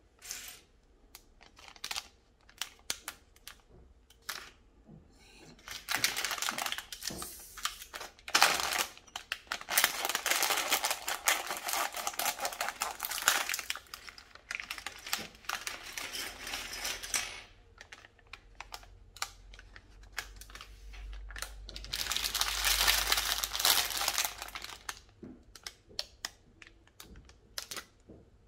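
A plastic bag of small LEGO pieces is handled and emptied. The plastic crinkles and many small plastic bricks rattle and click onto a wooden table, in scattered clicks and two longer spells of clattering.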